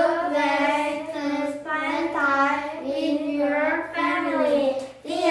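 Children singing a song together in unison, holding and gliding between notes.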